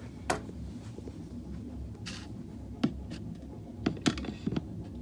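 Handling noise while working at a glass enclosure: a few short, sharp taps and knocks, several close together near the end, and a brief scrape, over a steady low rumble.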